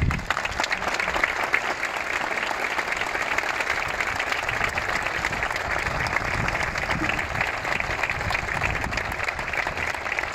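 A crowd applauding, the clapping starting suddenly and then holding steady.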